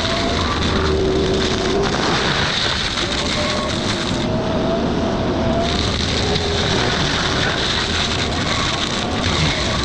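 Excavator with a hydraulic forestry mulcher head running steadily under load, a shifting whine over the engine noise.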